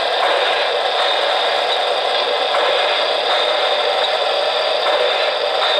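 O-gauge model train running on three-rail track: a steady rolling rattle of metal wheels with a motor whir and a thin high whine.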